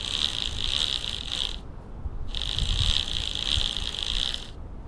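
Road bike drivetrain being turned by hand to work in freshly applied chain lube. The chain runs through the gears with a steady, high-pitched whirring buzz that pauses briefly about a second and a half in, resumes, and stops shortly before the end, with a few low knocks.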